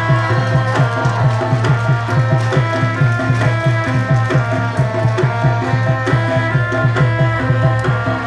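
Javanese gamelan ensemble playing dance accompaniment: fast, regular hand-drum strokes, several a second, under ringing metal gong-chime notes.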